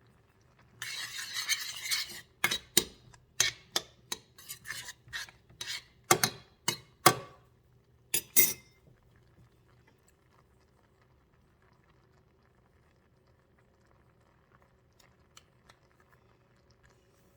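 Kitchen utensils on dishes: about a second and a half of rattling, then a run of about a dozen sharp clinks of a utensil against a bowl, stopping about eight seconds in.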